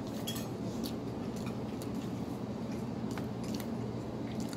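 Light, scattered clicks and clinks of plates and utensils at a meal table, over a steady low room hum.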